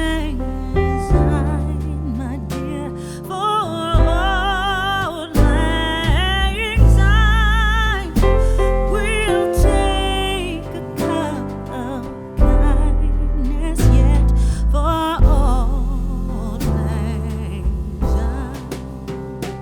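Music: a slow song with a singer holding long notes with vibrato, over piano and bass.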